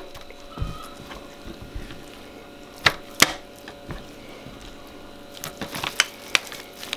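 Pieces of raw steak being put into a disposable aluminium foil tray and moved around by hand: soft thuds, then two sharp clicks of the foil pan close together about three seconds in, and small ticks near the end.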